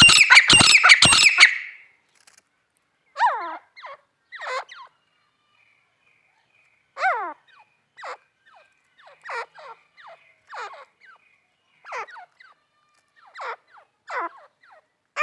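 Teetar (francolin) calling: a loud run of rapid, harsh repeated notes in the first second and a half, then short, quieter calls that each slide down in pitch, about one a second.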